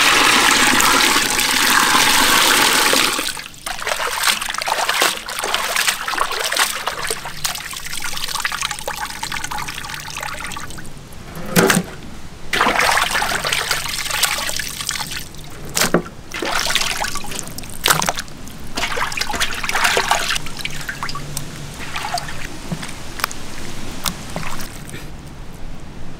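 Water poured out of a pot in a loud, steady rush for about three seconds, then raw beef chunks washed by hand in a basin of water: trickling and dripping as handfuls are lifted and squeezed, with a few sharper splashes.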